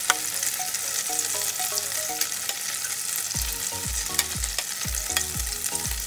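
Bread slice filled with beaten egg frying in melted butter in a pan, a steady sizzle full of small crackles and pops. Background music with a falling bass beat comes in about halfway through.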